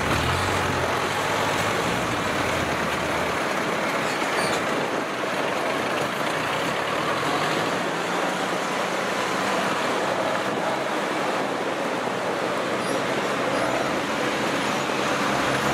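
Engine of a tracked rice-hauling carrier, loaded with sacks of rice, running as it drives past. Its low hum fades after about three seconds as it moves away, and a steady mechanical din carries on.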